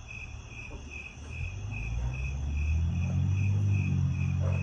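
A cricket chirping in an even rhythm, about two and a half chirps a second. A low rumble swells in from about a second and a half in and becomes the loudest sound.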